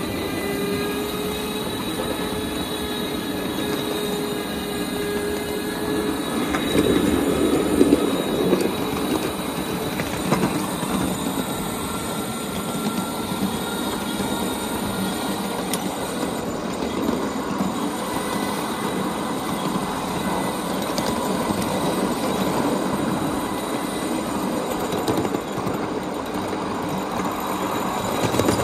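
Ride-on miniature backyard train rolling along its track: a steady rumble and clatter of wheels on the rails, with a thin whine over the first few seconds.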